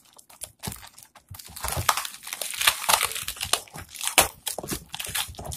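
Plastic courier mailer bag crinkling and crackling as it is handled and pulled at by hand to open it, in irregular bursts that grow louder and busier from about two seconds in.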